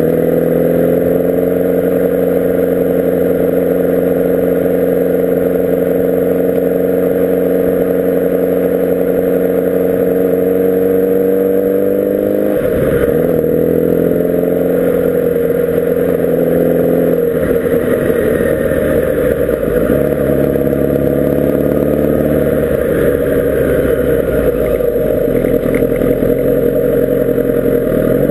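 Kawasaki Ninja ZX-10R SE's inline-four engine heard from the bike, running at a steady pitch while cruising. About halfway through the note dips and changes, and afterwards it is less even.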